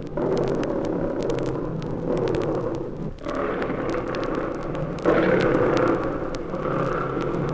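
Big cats in a lion house growling and snarling at feeding time. The growl is rough and unbroken, swelling again every second or two.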